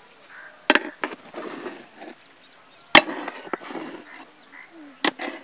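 Flat spatula knocking against a large metal pot and scraping through cooked rice as the biryani is mixed: a few sharp knocks, the loudest about three seconds in, each followed by a rustle of scraping.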